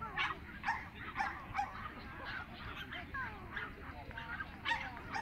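Dogs barking in short, sharp yaps: four in quick succession in the first second and a half, then one more near the end, over a low murmur of voices.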